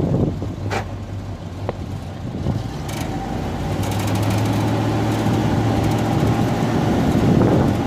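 Fuel tanker truck's engine running steadily while diesel is pumped through its hose into a crawler excavator, growing louder from about the middle. A few sharp knocks in the first three seconds.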